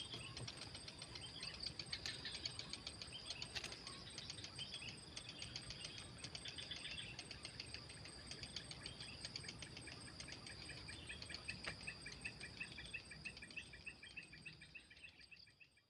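Insects chirping steadily in rapid, even pulses, with repeated short, higher chirps over them; the sound fades out near the end.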